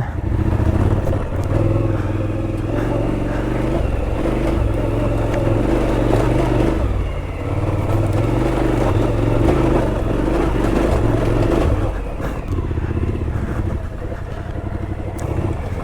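Twin-cylinder adventure motorcycle engine pulling at low revs over rough off-road ground, its revs rising and falling with the throttle, easing off about twelve seconds in.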